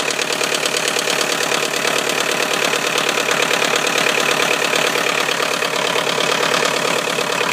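2001 Volkswagen Golf TDI's 1.9-litre four-cylinder turbodiesel idling cold shortly after a −25 °C start, with a steady, even diesel clatter.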